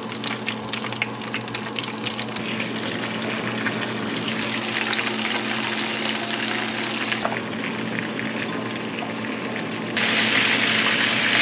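Panko-breaded chicken wings deep-frying in a pot of oil, a steady bubbling sizzle with crackle that gets suddenly louder about 4 seconds in and again near the end.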